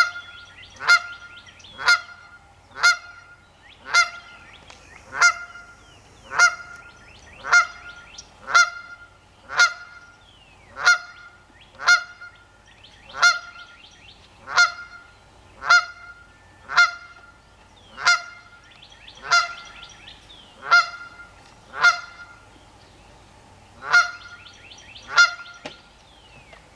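A lone Canada goose honking over and over, single loud honks about one a second, with a slightly longer pause near the end; the bird is taken to be mourning.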